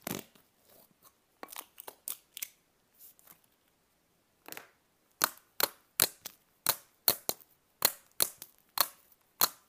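Thick, dough-like slime making small scattered crackles and squishes as it is scooped and handled. From about five seconds in, fingers poking and pressing into it draw a regular run of sharp pops, about two a second, louder than what came before.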